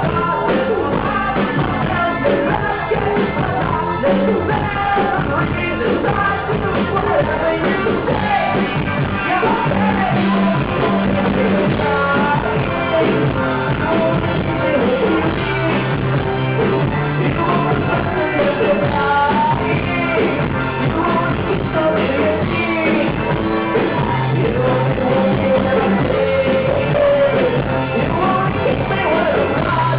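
Live rock band playing a song with drums, a steady bass line and singing, recorded from the crowd.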